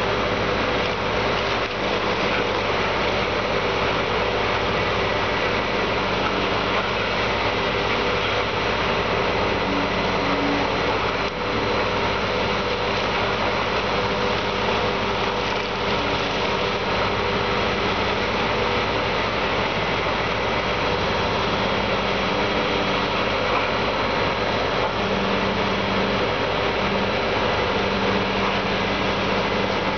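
Heavy demolition machinery running steadily: a Volvo excavator's diesel engine and a grinder shredding roof rubble of wood and insulation. It makes a dense, continuous drone with several steady tones and no breaks.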